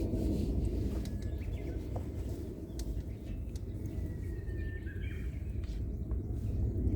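Wind rumbling steadily on the microphone, with a few faint bird chirps and one drawn-out bird whistle about four to five seconds in. Scattered small ticks.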